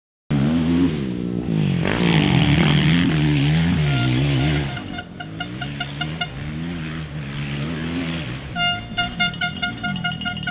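Motocross bike engines revving up and down, rising and falling in pitch over and over as the bikes ride the dirt track, loudest in the first half. From about halfway a quick series of short, high-pitched pulsing tones joins them.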